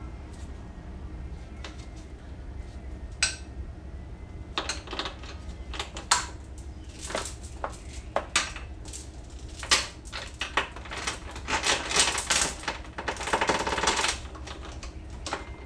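Links of a new motorcycle-type roller drive chain clinking and rattling as it is handled: scattered metal clicks, with a denser run of rattling about two-thirds of the way in.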